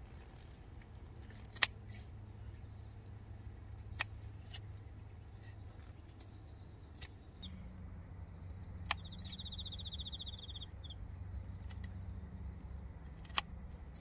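Scissors snipping through a bunch of garlic chives at the base, a sharp snip every second or few seconds, the loudest about a second and a half in. A low steady hum runs underneath and grows a little louder about halfway, with a brief high rattling trill just after.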